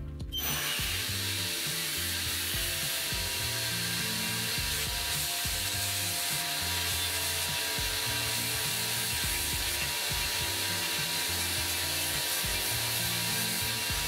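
Belt sander running steadily, with small wooden clamp parts being sanded against the moving belt. The sound starts suddenly just after the start and holds level throughout.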